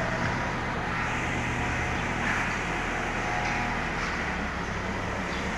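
Compact tractor engine running steadily as it drives a feed-pushing sweeper attachment.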